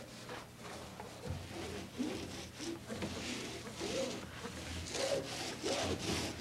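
Paint roller rolling primer onto wood in repeated back-and-forth strokes, a wet rubbing swish with each pass.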